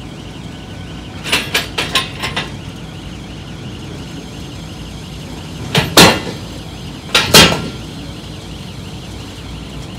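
Steel loading ramps of a lowboy trailer clanking as they are lowered into place: a quick run of lighter metal clanks about a second and a half in, then two loud metal bangs about a second and a half apart near the middle. A steady low rumble runs underneath.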